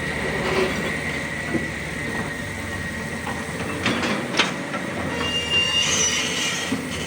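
Tracked hydraulic excavator working: a steady diesel engine rumble under metal squeals, with a couple of sharp clanks about four seconds in and a higher squeal near the end.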